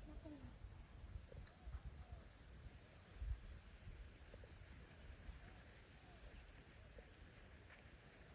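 Insects trilling in grassland: a faint, steady series of short, high, pulsing trills, about one a second.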